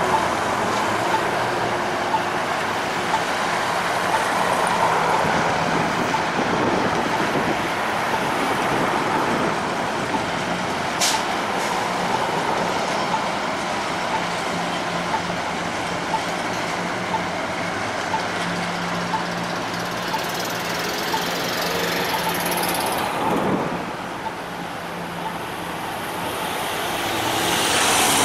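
Street traffic with a light-rail train running alongside: a steady wash of road noise over a low hum, with a brief high squeal about eleven seconds in. The noise dips, then swells near the end as a car passes close.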